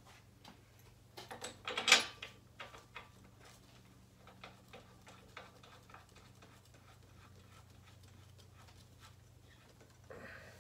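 Small metal clinks and clicks of parts and tools being handled, with a quick cluster and one sharp clink about two seconds in, then fainter scattered ticks, over a low steady hum.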